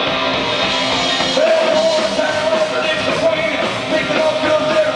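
Live psychobilly band playing loudly: hollow-body electric guitar, upright double bass and drum kit, with a male singer shouting the vocals into a microphone. A long note is held from about a second and a half in.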